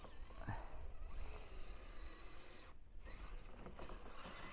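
Faint high whine from a Redcat Gen8 V2 RC crawler's electric drive as it climbs a snowy slope on stock Super Swamper tires. The whine holds steady for about a second and a half, starting about a second in, over a low hiss.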